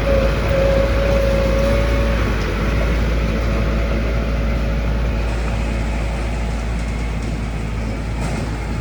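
Heavy diesel engine of earthmoving machinery running steadily with a deep rumble, and a thin steady whine for the first two seconds.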